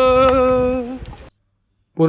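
A long held sung note in devotional chant-like music, trailing off just past a second in, then dead silence.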